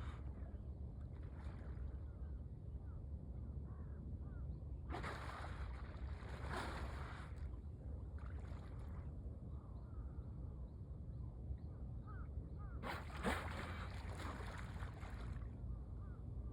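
Dolphins breathing at the surface: three rushing blows through the blowhole, about five seconds in, a shorter one soon after, and a long one near the end, over a steady low rumble.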